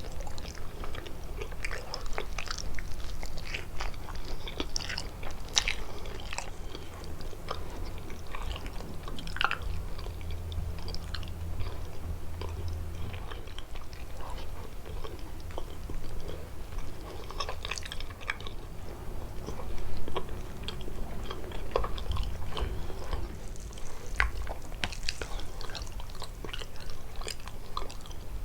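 Close-miked chewing and biting of kalaj, a thin semolina-pastry sweet filled with walnuts or cheese, with irregular wet mouth clicks and small crunches.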